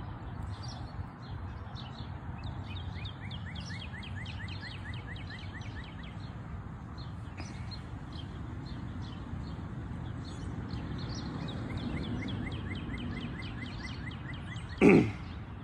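Steady low outdoor background rumble, with a bird giving fast runs of short repeated chirps, about four a second, in two bouts. A brief louder sound comes near the end.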